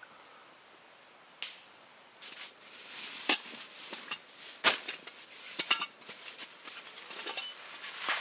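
Rustling with a run of sharp clicks and knocks, as of objects being handled, starting about two seconds in.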